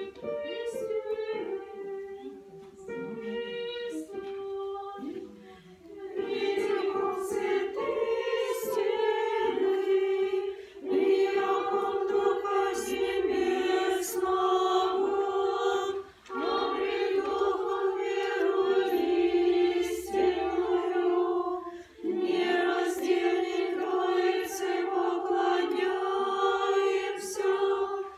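A choir singing an Orthodox church chant in several parts, unaccompanied. It goes in phrases a few seconds long, with short breaks between them; a few single notes come first before the full singing begins.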